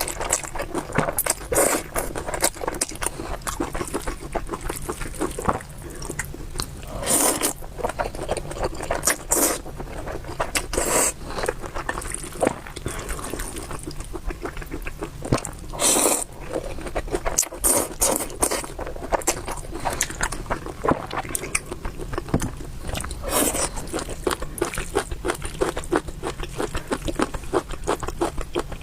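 Close-miked eating of spicy beef noodles: steady wet chewing and mouth clicks, broken every few seconds by a louder noisy slurp lasting about half a second.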